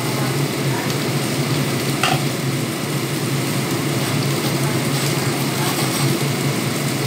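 Food sizzling in hot oil in a pan while being stirred, over a steady low hum. There is a light clink about two seconds in.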